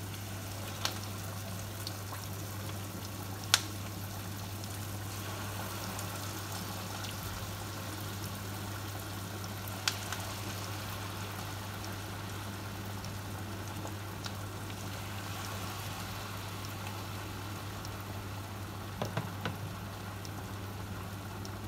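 Sambal chili paste sizzling and bubbling in a frying pan, a steady hiss over a low steady hum, with a few sharp clicks from handling.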